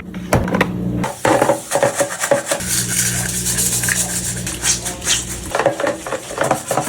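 Rubbing, scraping and knocking from cleaning a washing machine: parts are scrubbed and handled in a series of short knocks, with a steady low hum through the middle.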